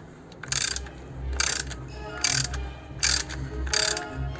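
Ratchet wrench worked in repeated strokes, its pawl clicking in short bursts about five times, as bolts are wound in to press the swirl-flap rail out of the intake manifold.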